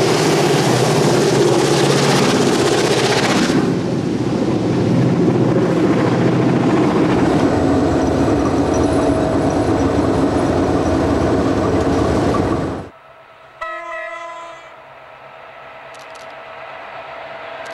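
Diesel-electric locomotives working hard under load, loud with the noise of a train passing close. About 13 seconds in the sound drops abruptly to a quieter, more distant engine drone, broken by one short horn blast sounding several tones at once.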